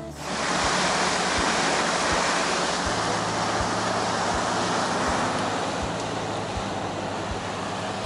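Water rushing past the hull and churning in the wake of a fishing boat under way, with wind, over a low steady engine drone.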